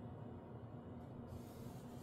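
Quiet workshop room tone: a steady low hum with no distinct events.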